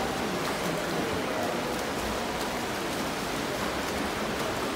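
Steady splashing of several swimmers swimming front crawl in an indoor pool hall.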